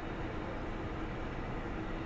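A distant jet airliner's engines during its landing rollout on the runway: steady engine noise with a hiss.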